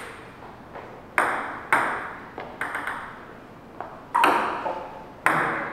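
Table tennis rally: the ball clicking off the paddles and the table, about nine sharp pocks at an uneven pace, some in quick pairs, each echoing briefly.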